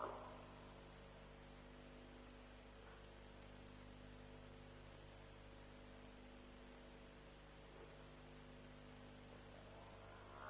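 Near silence: a steady electrical hum on the microphone feed, with the tail of an animal call fading out in the first half second.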